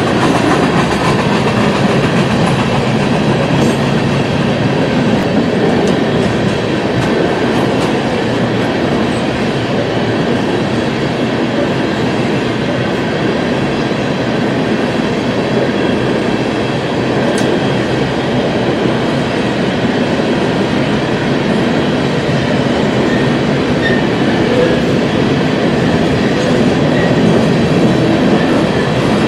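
A BNSF freight train's cars rolling steadily past, wheels running on the rails.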